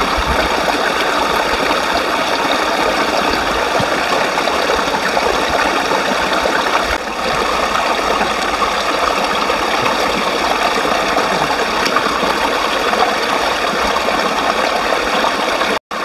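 A shallow mountain stream running over rocks, a loud, steady rush of water, cut off for a moment near the end.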